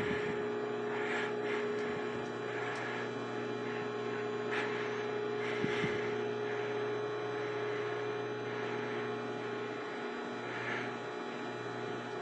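Microwave oven running with a steady electrical hum, with a few faint light clicks and rustles over it.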